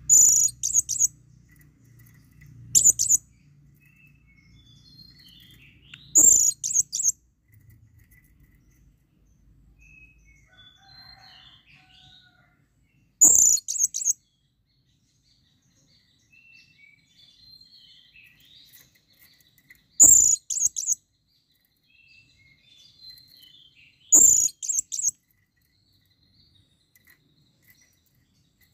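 Blue-crowned hanging parrot (serindit) calling: six shrill, very high-pitched bouts of a few rapid notes each, spaced a few seconds apart, with faint chirps in between. It is the call of a bird in breeding condition calling for a female.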